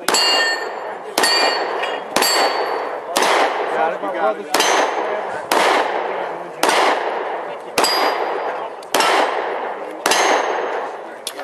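Handgun shots at a steady pace of about one a second, ten in all, fired at steel plate targets. Many shots are followed by the ringing clang of a steel plate being hit.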